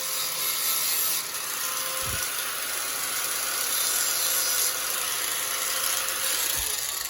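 Hand ratchet wrench being worked steadily, its rapid clicking merging into a continuous high-pitched rasp.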